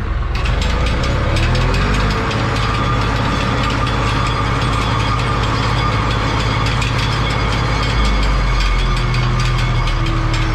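Potato combine harvester's unloading elevator running, potatoes clattering down it into a trailer, over a tractor engine running steadily. The rattling starts about a third of a second in.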